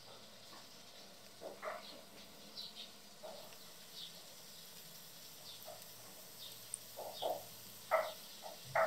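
Piped batter frying in shallow hot oil: a steady sizzle with scattered short crackles and pops, the loudest ones near the end.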